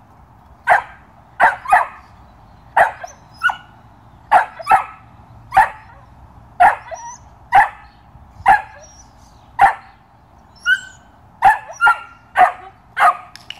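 A 13-week-old Belgian Malinois puppy barking in short, sharp barks, about one a second and now and then two in quick succession.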